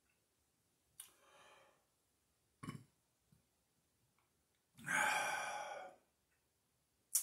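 A man's breathing and burping: a short breath out about a second in, a short burp near three seconds, then a long heavy sigh or breath out about five seconds in. A sharp click comes near the end.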